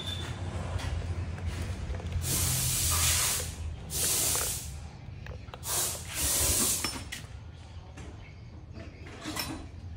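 Three bursts of hissing spray, each under about a second long, over a low steady hum.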